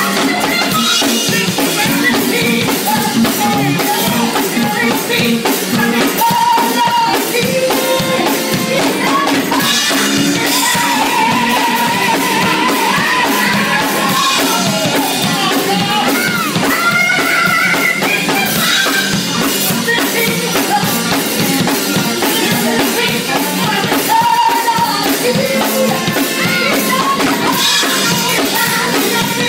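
Live music: a woman singing into a microphone over keyboard accompaniment, with drums keeping a beat.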